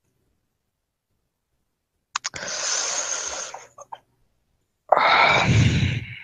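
A person sighing, two long breathy exhales about three seconds apart with a couple of small clicks between them; the second sigh carries some voice. It follows two seconds of dead silence.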